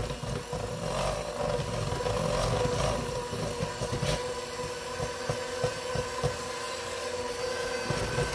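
Handheld electric mixer running steadily with a constant whine, its beaters churning a thick mix of softened mascarpone and cream cheese in a stainless steel bowl, with occasional light clicks.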